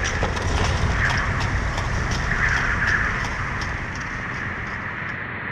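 Wind buffeting the microphone outdoors, a steady rumble that eases off toward the end, with a run of light, regular clicks over it.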